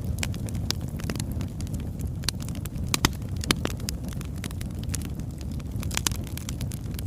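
Burning log fire crackling: a steady low rumble of flame with irregular sharp pops, the loudest a little after three seconds and again around six seconds.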